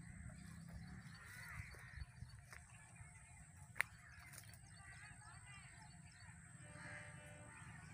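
Birds calling faintly and repeatedly, with a harsher pitched call near the end. A single sharp click about halfway through is the loudest sound.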